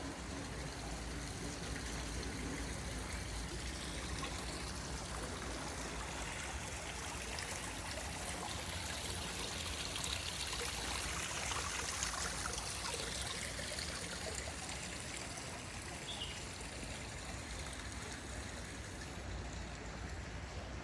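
Steady rush of running or falling water, swelling a little around the middle.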